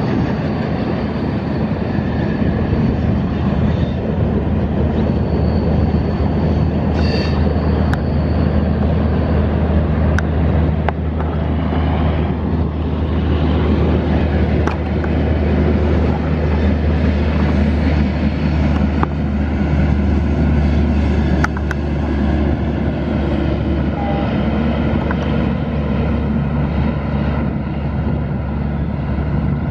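Diesel locomotive hauling a passenger train, its engine a steady low drone along with the running noise of the coaches on the track.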